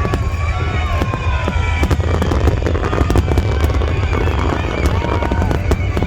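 A fireworks display going off: a rapid run of sharp cracks and pops over a steady low rumble, with music playing along.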